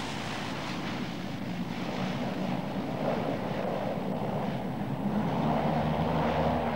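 Twin PT6A turboprop engines and propellers of a de Havilland Canada DHC-6 Twin Otter running as the aircraft rolls out after landing: a steady drone with a low hum that swells about three seconds in and again near the end.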